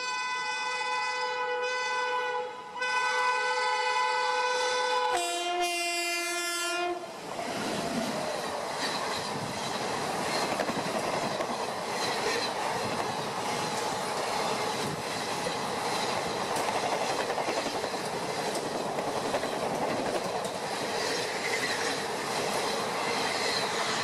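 Locomotive horn sounding in a long chord as the train approaches, briefly broken about three seconds in, then dropping in pitch as the locomotive passes close by. The horn gives way to the steady rush and clatter of passenger coaches going past at speed.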